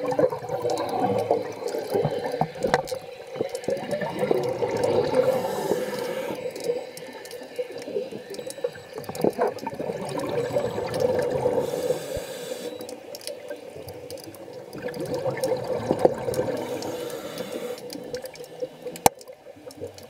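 Scuba diver's exhaled bubbles rushing from the regulator, heard underwater, swelling and fading in waves every five seconds or so with the breaths. A single sharp click near the end.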